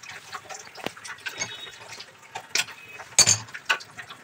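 Light plastic clicks and knocks from white RO purifier tubing and its fittings being handled at the unit's ports, with the loudest click about three seconds in.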